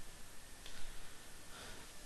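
Trading cards being handled, with two short, soft sliding rustles as cards are flicked through.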